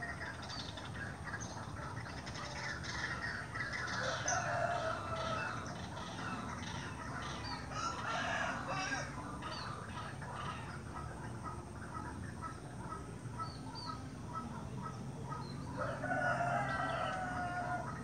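Birds calling from trees and bushes: a run of short repeated notes and chirps, with three louder, longer calls about four, eight and sixteen seconds in. The bird recorded is the one known in Javanese as sri mbombok.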